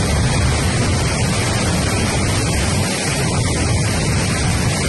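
Floodwater rushing and churning in big standing waves below a barrage: a loud, steady rushing noise with a heavy low rumble.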